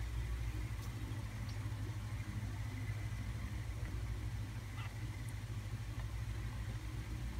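White mother cat purring steadily, a low, even rumble close to the microphone while her newborn kittens nurse.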